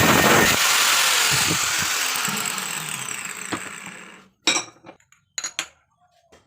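A power tool running and then winding down over about four seconds after it is released, its pitch falling as it slows. A few short metallic knocks and clinks follow near the end.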